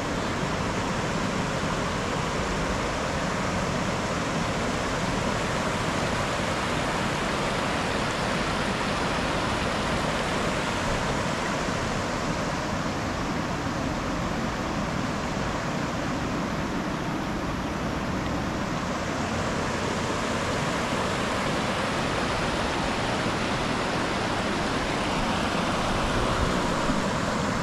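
Steady rush of river water flowing over shallow rapids.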